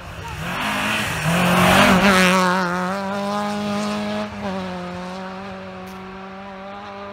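Rally car at full throttle on a special stage: a loud rush as it passes close about one to two seconds in, then the engine note holds a steady high pitch and slowly fades as the car drives off down the stage.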